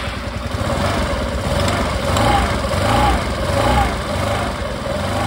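Suzuki Access 125 single-cylinder four-stroke engine idling with the CVT cover off, the freshly fitted drive belt and variator pulley spinning, running smoothly; the engine note swells slightly a few times in the middle.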